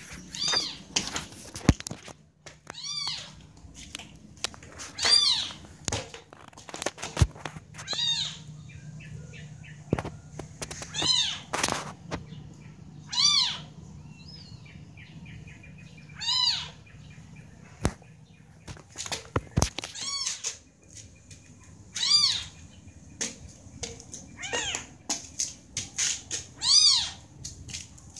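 Young kittens mewing, high-pitched short cries repeated every second or two, with a few sharp knocks in between.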